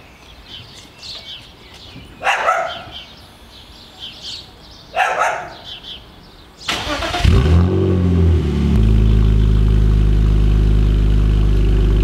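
BMW 323Ci (E46) with a new straight-through exhaust cranking and starting about two-thirds of the way in. The 2.5-litre straight-six catches, flares briefly in revs, then settles to a loud, steady idle.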